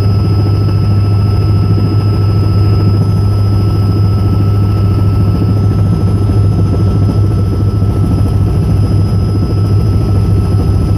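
Helicopter rotor and engine heard from inside the cabin, a loud, steady beating drone with a thin steady whine above it, as the helicopter descends to land.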